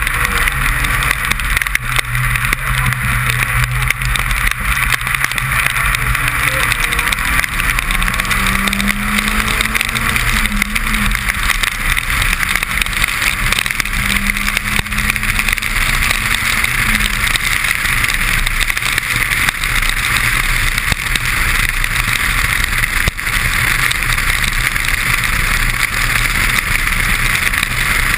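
Suzuki Swift rally car at speed on a wet stage: its engine runs under load, the note shifting up and down, under a loud, steady hiss of spray and road noise.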